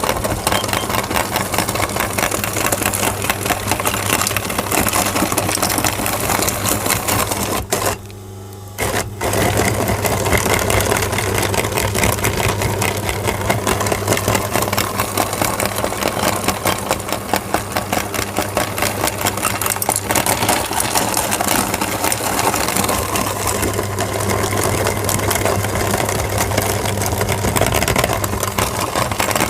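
Electric meat grinder motor running steadily while grinding crayons, with a dense rapid crackle over the motor hum. It cuts out briefly about eight seconds in, then runs on.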